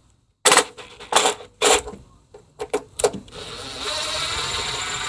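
Socket wrench on small-engine bolts: a few separate clicks and knocks, then from about three seconds in a steady rapid ratcheting as a bolt is loosened.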